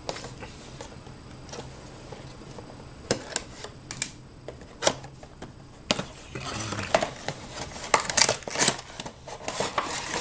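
A cardboard Funko Pop box being opened by hand, its flaps and clear plastic window insert giving off irregular sharp clicks, taps and scraping rustles that come thicker in the second half.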